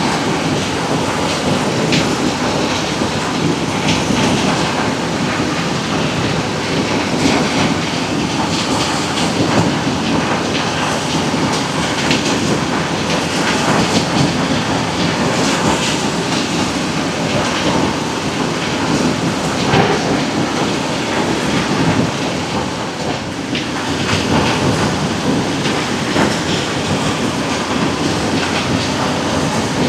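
Quarry rock crusher running steadily, with stone clattering and knocking through it and heavy diesel machinery working alongside.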